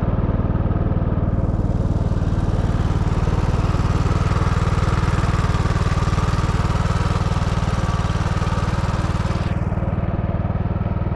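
Single-cylinder engine of a Grillo Climber 7.13 ride-on mower running steadily with the machine standing, a rapid even thudding pulse. The treble drops away during the first second or so and again near the end, where a finger covers one of the microphones.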